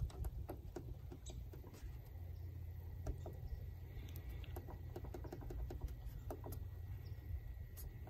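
Buttons on a Generac Evolution 2.0 generator controller keypad being pressed in quick succession: a string of small, irregular clicks over a steady low rumble.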